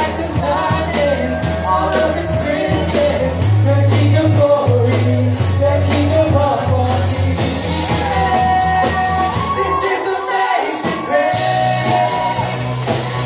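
Live worship band music with singing over a sustained bass and a steadily shaken tambourine; the bass drops out for about a second near the end.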